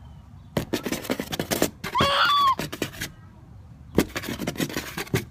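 Fingernails scratching on cardboard in quick rasping strokes, in two bursts. Between them, a short high-pitched squeal about two seconds in.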